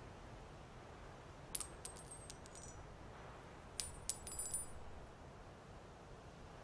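Small metal pieces dropping and clinking on a hard surface in two quick clusters about two seconds apart, each a handful of bright, ringing clinks, over a faint steady hiss.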